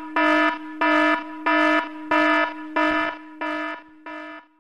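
Electronic alarm sound effect: a pitched warning tone pulsing on and off about three times every two seconds, growing quieter and fading out near the end.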